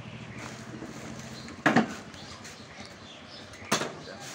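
Two sharp chops on a wooden butcher's chopping block, about two seconds apart, over a faint low hum.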